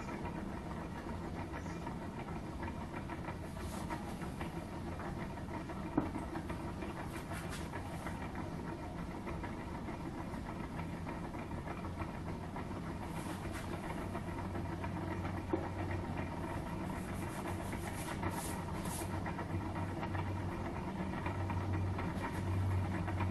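Homemade gamma-type Stirling engine running with a steady, rhythmic mechanical clatter, after new cooling fins have been fitted. A low hum grows louder near the end.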